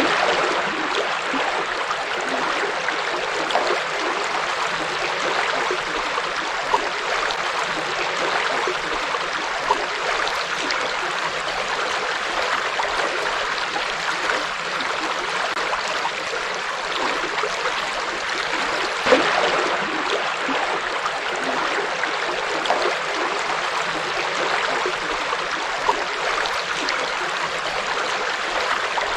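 River water flowing steadily over rocks in a continuous rushing, gurgling wash, with a few brief louder splashes, the clearest about two-thirds of the way through.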